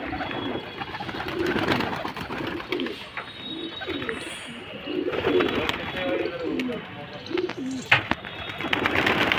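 A flock of domestic pigeons cooing, many overlapping low, rolling calls in quick succession, with a couple of sharp claps near the end.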